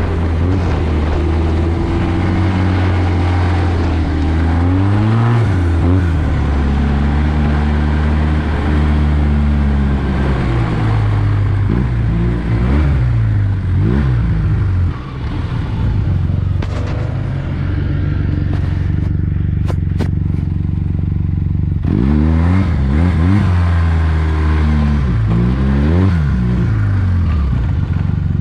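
Arctic Cat 1100 Turbo snowmobile's turbocharged four-stroke engine heard from the rider's seat, running under throttle on the trail. About halfway it drops in pitch as the sled slows to a crawl. It stays low for several seconds, then revs back up with rising pitch as the sled accelerates away.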